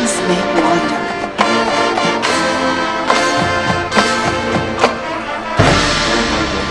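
High school marching band playing: brass chords held over regular drum and cymbal hits, with a strong accent about five and a half seconds in.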